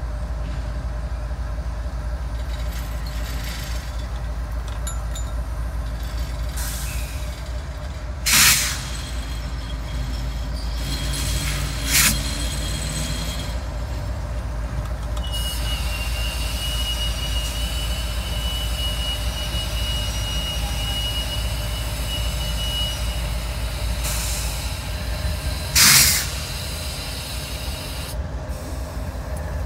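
Canadian National freight train's diesel locomotives rolling slowly, with a steady low engine rumble. A steady high squeal from the slowing train runs for several seconds in the middle. Three short loud bursts of noise cut through, two about four seconds apart and a third near the end.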